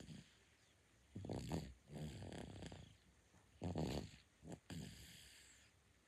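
Nine-month-old baby snoring in sleep: two loud, rattling snores about two and a half seconds apart, each followed by a longer, softer breath.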